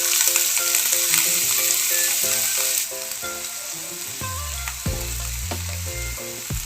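Chopped onions sizzling and frying in hot oil in a pan, the hiss dropping somewhat about three seconds in. Background music with short repeating notes plays underneath, and a bass line comes in near the middle.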